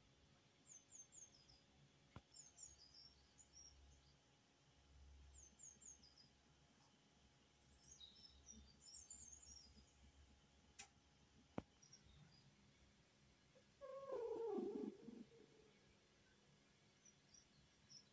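Snow Bengal cat purring softly, a faint pulsing low rumble, with faint bird chirps in the background. About fourteen seconds in the cat gives one short call that falls in pitch, the loudest sound here.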